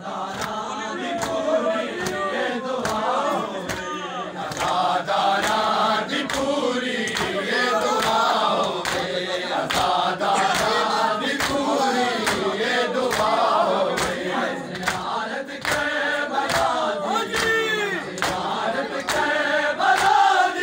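A crowd of men chanting a mourning lament (nauha) in chorus during matam, with sharp, evenly spaced beats of hands striking bare chests, about two a second.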